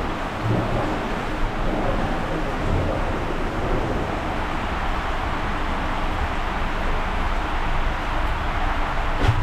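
Steady rushing of water and air on a water slide run, with a single short knock near the end.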